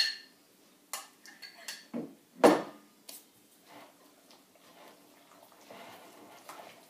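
A whisk clinking against a glass mixing bowl while a batter is stirred: a handful of sharp separate clinks, the loudest about two and a half seconds in, then faint scraping of stirring near the end.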